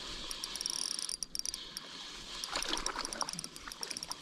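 Fishing reel being cranked, its mechanism giving a fast, faint, even clicking, with a few soft watery sounds about two and a half seconds in.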